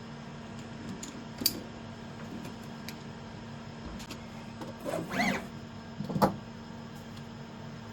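DIY CNC machine running: a steady motor hum with a few light clicks, a short louder cutting or rasping noise about five seconds in, and a sharp click just after.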